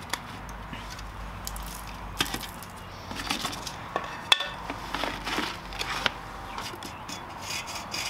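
Plastic sheeting crinkling and rustling as it is handled and pulled off a freshly cast aircrete surface, with scattered handling knocks and one sharp click a little over four seconds in.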